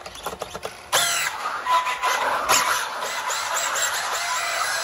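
Team Associated RC10B6.3 electric buggy driving fast on carpet: its brushless motor whines up and down in pitch over the rush of the tyres scrubbing the carpet, starting about a second in after a few light clicks.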